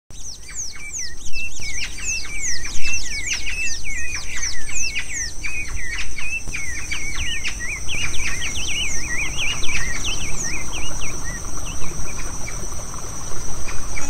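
A dense chorus of birds chirping and calling, with many quick falling whistles and warbling notes that thin out in the last few seconds. A steady high insect-like drone runs underneath.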